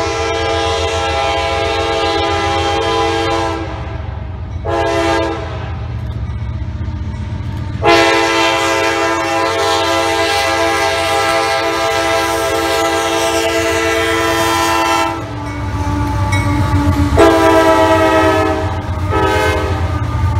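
CSX diesel freight locomotive sounding its air horn for a grade crossing: a long blast, a short one about five seconds in, a long blast of about seven seconds, then two shorter blasts near the end. Under the horn runs the low rumble of the approaching locomotive's engine.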